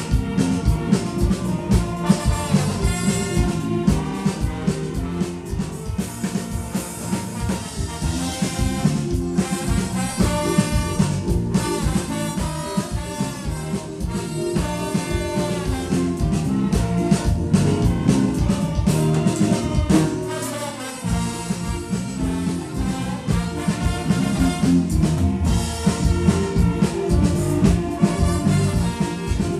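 A band with brass and drums playing an upbeat, swing-style instrumental with a steady beat. The bass drops out briefly about twenty seconds in.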